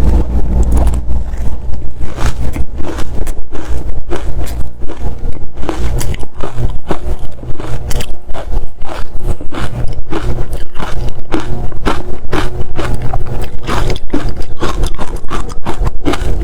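Frozen matcha ice being bitten and crunched close to the microphone, a dense run of sharp, brittle crunches several times a second. A steady low hum sits underneath.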